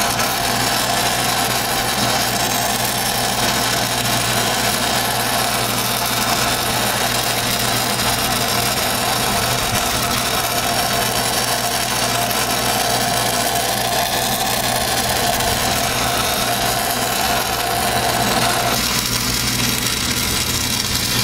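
Stick-welding arc crackling and hissing steadily as a bead is run on a 3-inch schedule 40 pipe-to-flange joint with 1/8-inch Fleetweld 5P+ (E6010) rod at about 124 amps. A steady engine hum runs underneath.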